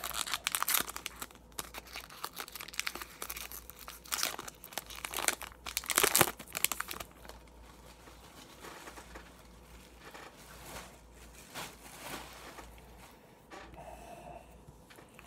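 Foil wrapper of an Upper Deck hockey card pack crinkling and tearing as it is opened by hand, with several loud crackles in the first seven seconds. After that the cards are handled, rustling faintly.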